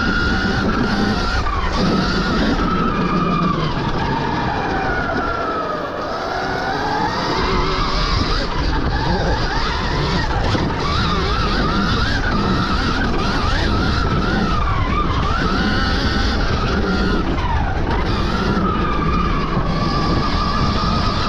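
Stark Varg EX electric dirt bike's motor whining as it is ridden hard, its pitch falling and rising with speed, dropping low about six seconds in and climbing again, over a steady low rumble.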